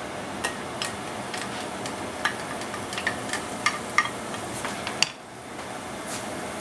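Chopped turkey bacon tipped from a dish into a hot nonstick frying pan: a string of sharp clicks and taps as the pieces land and the dish knocks against the pan, over a steady sizzle. After about five seconds a spatula begins stirring the bacon in the pan.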